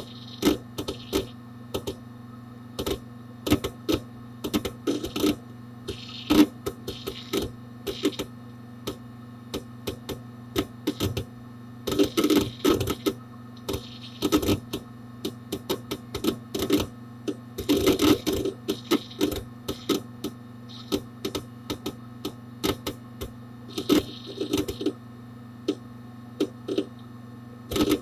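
Hard disk drive inside a Dell Dimension 4700 desktop computer, heard from within the case close to the drive: its heads seeking, irregular clicking and chattering with dense rattling runs a few times, over a steady hum.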